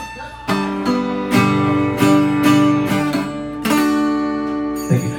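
Acoustic guitar strummed chord by chord, a new strum about every half second.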